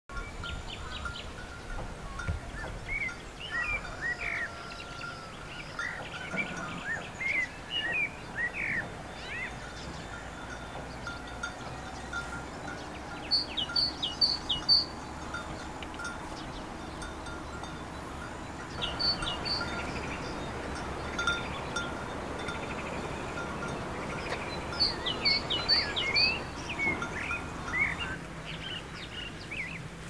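Several wild birds chirping and singing, with a phrase of three or four short, clear high notes coming back about every six seconds over a steady background hiss.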